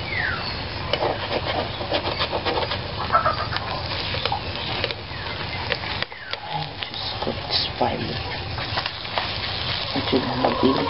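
Beaten eggs sizzling in a nonstick frying pan while a slotted spatula stirs, scrapes and folds them, with many short scraping clicks over the frying.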